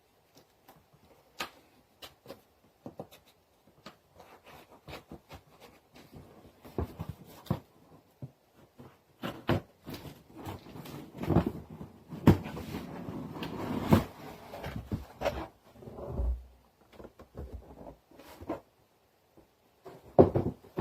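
Cardboard box and packaging being opened and handled: scattered clicks and knocks, with a longer stretch of rustling and scraping about halfway through.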